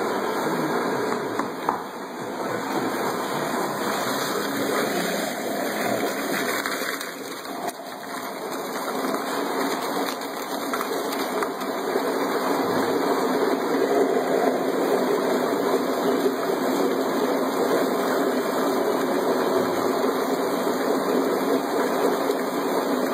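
A 1¼ horsepower garbage disposal running as the blender of a homemade margarita machine, churning a slushy mix of ice and liquid with continuous sloshing and gushing. It gets louder about halfway through.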